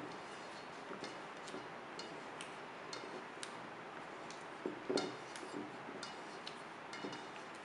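Silicone spatula stirring a creamy mixture in a stainless steel bowl, with irregular light clicks and taps of the spatula against the bowl over a steady hiss; a louder cluster of knocks comes about five seconds in.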